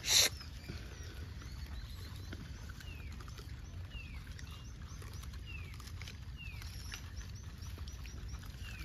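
A troop of gray langurs feeding, with soft scattered ticks and rustles as they handle and eat food, over a low steady rumble. A brief, loud sharp noise sounds right at the start, and repeated short falling chirps come about once a second through the second half.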